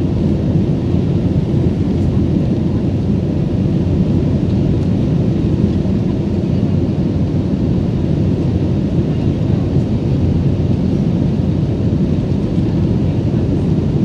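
Steady low roar of an Airbus A320-family airliner in flight, heard inside the passenger cabin: engine noise and rushing airflow at cruise.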